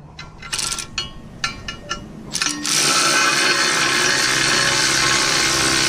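Cordless electric ratchet running steadily from about two and a half seconds in, driving a bolt on the valve mounting. Before that come a series of separate clicks and knocks of the tool and socket on metal.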